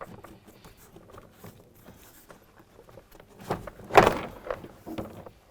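Plastic interior door trim panel of a Honda Civic being lifted up and off the door: light clicks and rustling, then a cluster of knocks with one loud knock about four seconds in.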